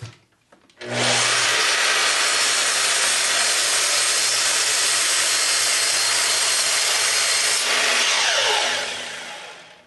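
Makita sliding miter saw starting up about a second in and running steadily as the blade crosscuts through the ends of a stack of wooden boards. Near the end the motor is switched off and the blade winds down with a falling whine.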